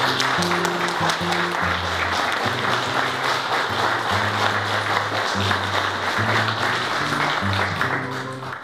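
An audience applauding over background music with low, held notes; the clapping cuts off abruptly at the end.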